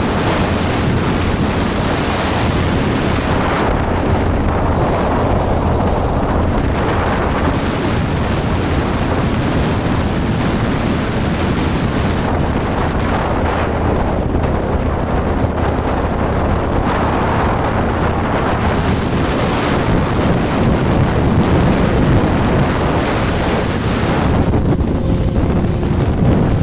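Heavy wind buffeting the microphone on a moving motorcycle at highway speed, with the engine and road noise running steadily underneath.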